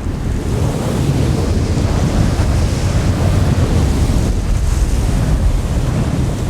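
Storm wind blowing hard and steadily, with a deep rumble and gusts that rise and fall.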